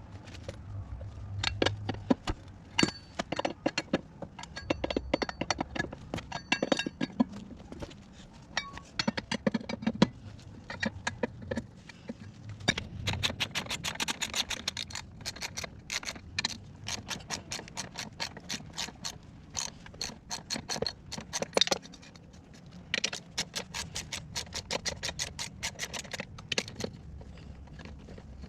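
Metal hand tools clinking, clicking and scraping in quick irregular runs, with denser stretches of rapid clicks, as a wheel is being unbolted from an ATV.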